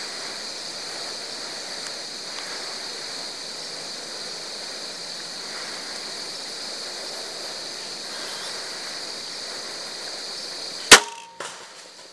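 Steady woodland background hiss, then about eleven seconds in a single sharp, loud crack of a Wicked Ridge Invader crossbow firing.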